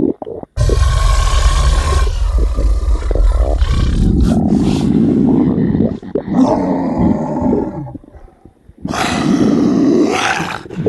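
Exaggerated cartoon stomach-rumble sound effect: loud roaring, growling rumbles in three long bouts. The first bout has the deepest rumble; there is a short break just after the start and a dip about eight seconds in.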